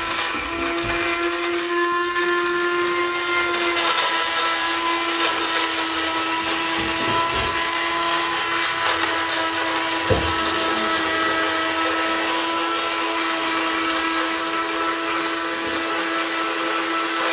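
Small bottle blender's motor running steadily with an even whine as it grinds dried eggshells into powder. A single knock comes about ten seconds in.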